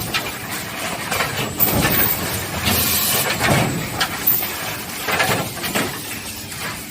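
Automatic wooden pallet deck nailing machine running: a steady mechanical noise broken by irregular knocks and clatter.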